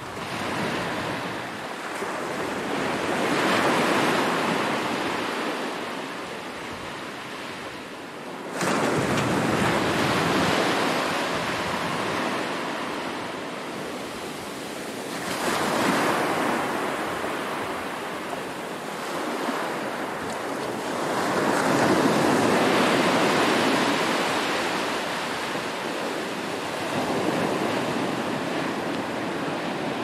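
Small surf breaking on a sandy beach and washing up the shore, swelling and fading about every six seconds; one wave breaks suddenly about nine seconds in.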